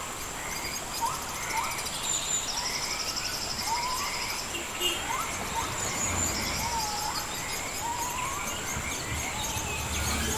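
Forest ambience at dusk: birds give many short, rising chirps, over a steady high-pitched insect whine and now and then a rapid high insect trill.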